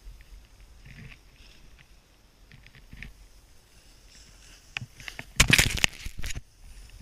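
Snowboard sliding and scraping over firm, tracked snow, faint at first, then a loud scrape lasting about a second near the end.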